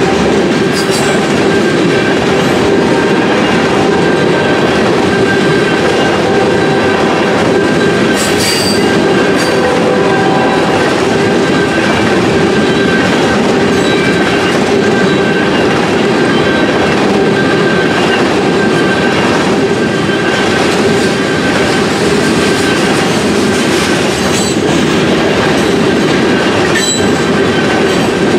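Tank cars of a long freight train rolling past at close range: a loud, steady rumble of wheels on rail. Steady ringing tones run over it, and a few sharp clanks come about a second in, near eight seconds and near the end.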